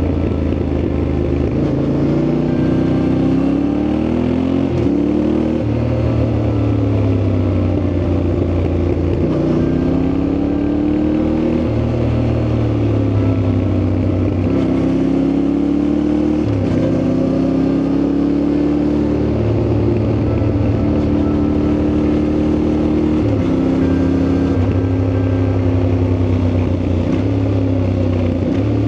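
Yamaha Ténéré 700's 689 cc parallel-twin engine under way, revs rising and falling, with several sudden drops in pitch as the rider changes gear.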